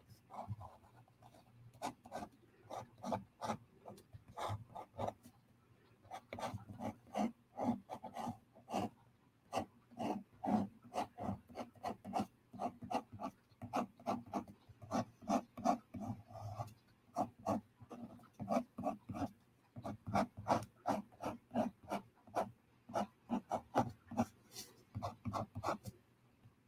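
Black ink pen drawing on paper: quick short strokes scratching across the sheet, a few a second, in runs with brief pauses.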